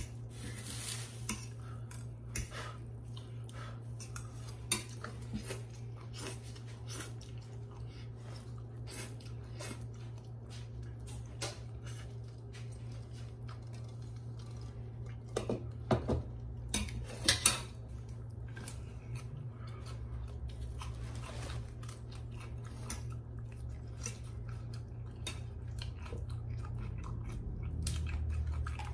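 Metal fork clinking and scraping against a ceramic bowl while eating instant noodles, with chewing between the clinks. There is a cluster of louder clinks about halfway through.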